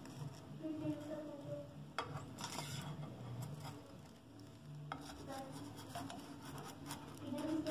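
Nylon spatula scraping and tapping against a ceramic-coated non-stick frying pan as it is pushed under a frying egg, with a few sharper knocks and light crackling of the egg cooking.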